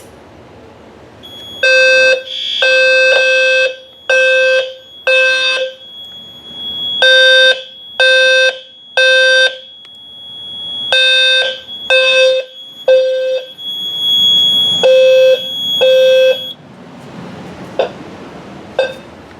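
Fire alarm system in alarm after a smoke detector trips on test smoke: a horn sounds in the temporal-three pattern, three half-second blasts and then a pause, repeated. A steady high-pitched tone runs underneath. Both stop together about three-quarters of the way through.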